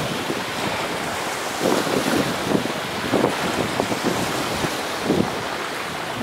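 Wind buffeting the microphone in irregular gusts, over a steady wash of sea surf.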